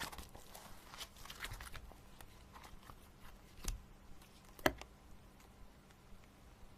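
Faint rustling and scattered light clicks of something being handled, with two sharper knocks around the middle.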